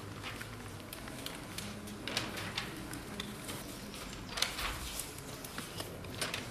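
Camera shutters of several press photographers clicking irregularly, some in quick runs of shots, over a steady low room hum.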